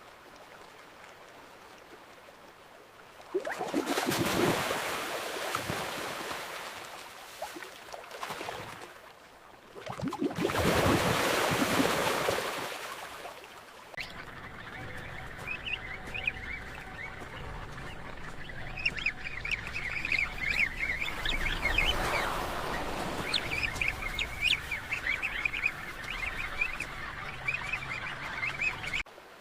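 Two loud rushes of water, like splashes of penguins diving, about three seconds in and again about ten seconds in. Then a steady wash of water with a penguin colony calling over it: many short, high calls crowding one after another.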